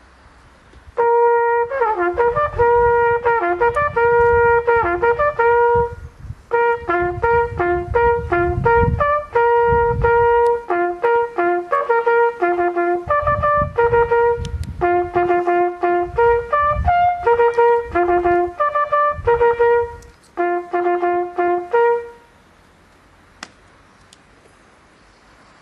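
A solo military bugle call: quick, repeated notes on a few pitches, played in three phrases. It starts about a second in and stops a few seconds before the end.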